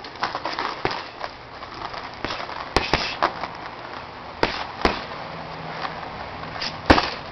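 Punches landing on a hanging heavy bag: a string of sharp smacks at irregular intervals over the first few seconds, then a few more knocks as the bag swings, the loudest near the end.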